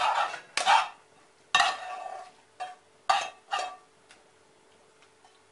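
A spoon scraping and knocking against a frying pan as sautéed carrot and onion are tipped into a soup pot: about six short scrapes in the first four seconds, then quiet.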